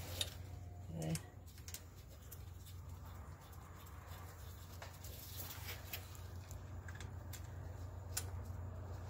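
Scattered light clicks and taps of bolts being fitted by hand into the front axle shaft's flange, over a low steady hum.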